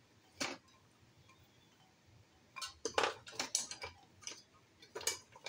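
Light clinks and knocks of small hard objects being handled on a worktable: one knock about half a second in, a quick run of clinks between about two and a half and four seconds in, and a couple more near the end.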